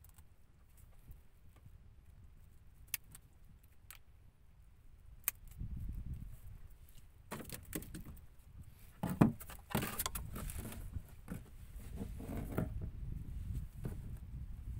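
Rattling and clicking of fishing gear being handled in a small wooden boat, busier from about halfway, with one sharp knock about nine seconds in. A low rumble runs underneath from about halfway.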